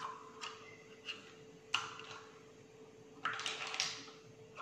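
Light clicks and knocks of kitchen containers and a measuring cup being handled, with a sharper tap a little under two seconds in and a short rustling stretch a bit past three seconds. A faint steady hum runs underneath.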